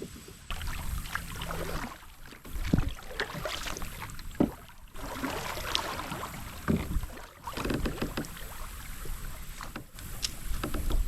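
Kayak on a creek: water and hull sounds, with scattered knocks and irregular low rumbles of wind on the microphone.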